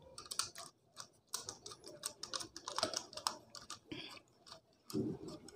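Faint, irregular small clicks and rustles as copper wire is handled and pushed against the screw terminals of a plastic switch board.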